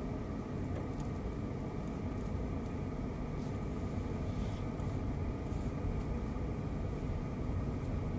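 Steady road and engine noise of a car driving: a continuous low rumble that holds an even level throughout.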